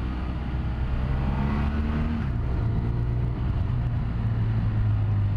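BMW F800ST parallel-twin engine running at low speed while filtering between stopped cars and trucks, a steady drone whose pitch shifts a little in the first two seconds.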